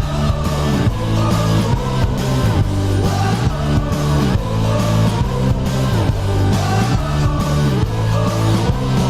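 Loud rock goal song with electric guitar and a steady drum beat, played after a hockey goal horn.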